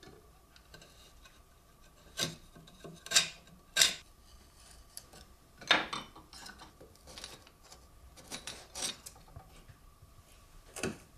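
Hand blade shaving along a thin strip of wood: short scraping strokes at uneven intervals, about nine in all.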